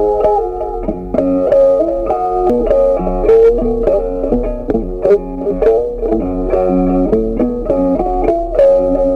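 Background music: a plucked guitar melody over a bass line with a steady beat.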